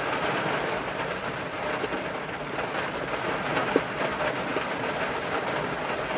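Rain falling on a car's roof and windows, heard from inside the cabin: a steady dense patter of drops, with one sharper, louder drop hit about two-thirds of the way through.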